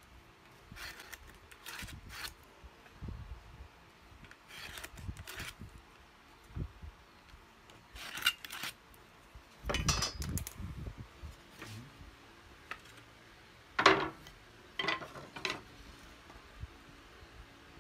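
Hand work on a wooden workbench: short scratching strokes of a pen marking wood along a steel ruler and square, with knocks and clatters as the metal square and thin wooden strips are handled and set down. The loudest is a sharp knock a little past two-thirds through.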